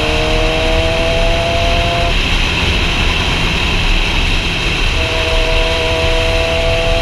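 Heavy wind rush on a rider's helmet camera with a sportbike's engine note: a steady hum that slowly rises in pitch, drops out about two seconds in, and comes back about five seconds in, climbing again.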